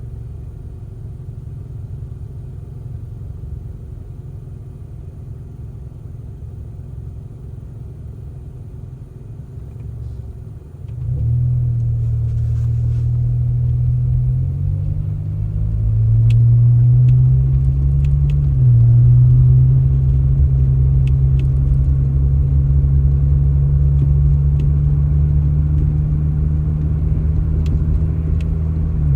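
A motor vehicle's engine running with a low rumble. About eleven seconds in it grows louder into a steady drone, its pitch stepping up a couple of times before holding steady.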